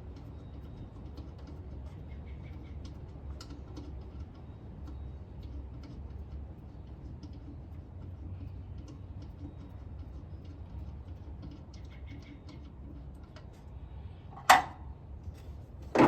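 Scattered light metallic clicks and ticks of parts and tools being handled, over a steady low hum. Two sharp knocks come near the end, about a second and a half apart, and are the loudest sounds.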